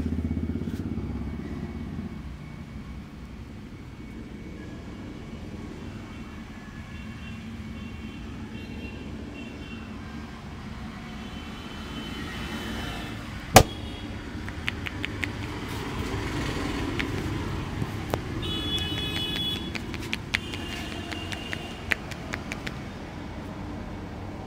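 Street traffic noise: a motorbike fading away at the start, then a steady traffic hum with short horn toots several times. A single sharp snap about halfway through is the loudest sound, and lighter clicks follow near the end.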